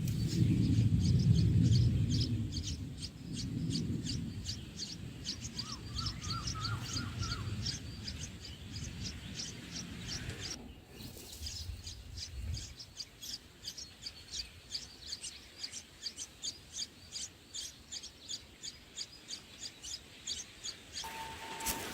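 Bulbuls chirping: a long run of short, high chirps, about three a second, with a brief break about halfway through. A low rumble sits under the first few seconds.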